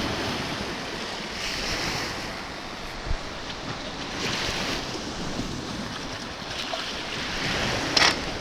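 Sea waves washing in with wind buffeting the microphone, rising and falling in slow swells. A brief sharp sound stands out as the loudest moment near the end.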